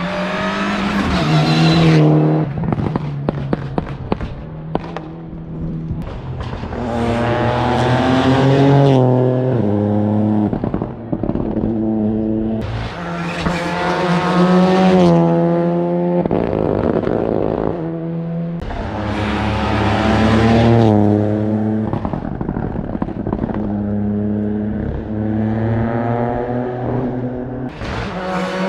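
Rally car engine at full throttle on a special stage, revving up through the gears and dropping back several times. There is a run of sharp cracks about three to five seconds in.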